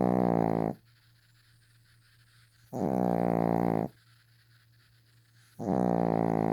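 Loud, rhythmic snoring, one drawn-out pitched snore about every three seconds, each lasting just over a second, with quiet gaps between. A snore ends about a second in, a full one comes in the middle, and another starts near the end.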